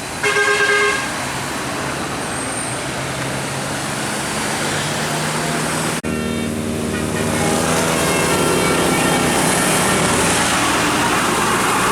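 A bus horn gives one short multi-tone toot just after the start, followed by a bus engine running. About six seconds in the sound breaks off, then the engine and traffic noise build up louder.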